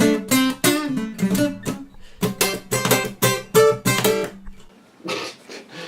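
Acoustic guitar strummed in chords, a stroke every half second or so, stopping about four and a half seconds in.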